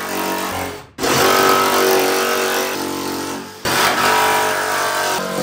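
Cordless jigsaw sawing through a fiberglass hood panel, a steady pitched buzz over a rasping hiss. It stops and restarts twice: once about a second in and again about three and a half seconds in.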